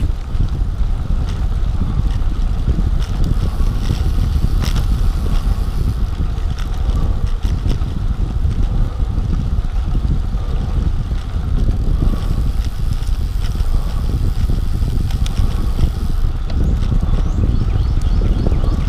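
Wind rushing over the microphone of a camera on a road bicycle moving at about 15 mph, a steady low rumble, with a few faint ticks.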